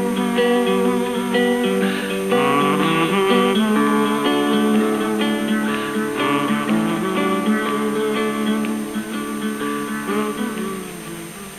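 Acoustic guitar music, strummed and picked in quick notes and chords, with no singing, fading out near the end.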